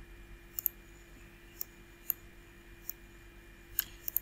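Computer mouse button clicks: about eight short, sharp clicks scattered over a few seconds, some in quick pairs, over a faint steady hum.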